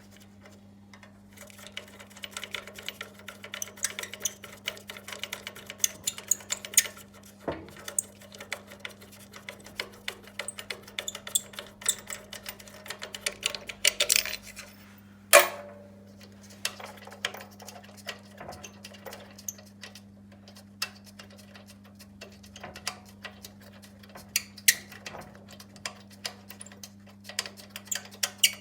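Tools and metal parts of a Makita chop saw clicking and tapping irregularly as it is dismantled, with a sharp knock about halfway through, over a steady low electrical hum.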